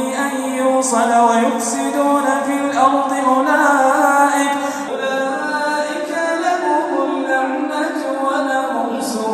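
A male reciter chanting the Quran in a melodic, drawn-out style, holding long ornamented notes with a new phrase starting about halfway through.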